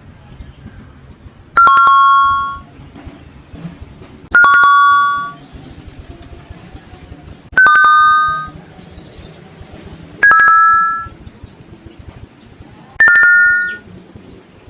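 A bell-like two-note chime sounds five times, about every three seconds. Each ding starts sharply, fades over about a second, and is pitched a little higher than the one before. A faint, low rustle lies underneath.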